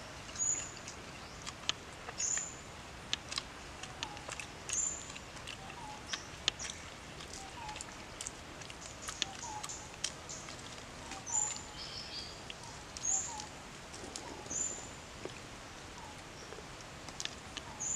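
Wild birds calling: a short high call repeated every one to two seconds, with fainter lower short notes. Scattered sharp clicks and taps run through it.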